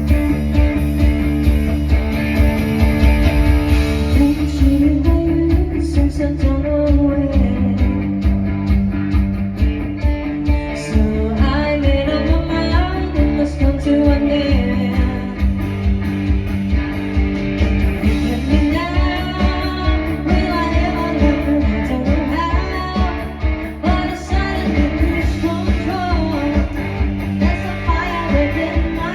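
Live band playing a rock-style song: guitar, bass and drums, with a singer's voice coming in about five seconds in.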